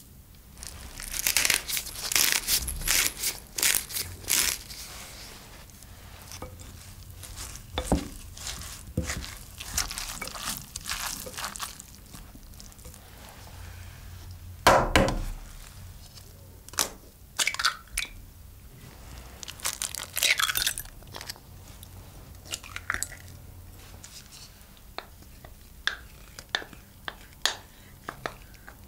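Close-miked kitchen handling sounds with no speech. Crisp crunching and rustling of grated raw potato comes first. Later there are knocks of eggs cracked against a glass bowl, the loudest about halfway through, then scattered soft clicks and wet drops as eggs and yogurt go into the bowl.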